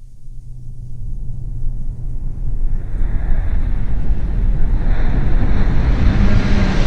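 Designed sci-fi spaceship sound effect played back: a D6 ship's layered engine sound, a steady low hum under rumbling noise, fading in and building steadily louder as a hiss spreads higher.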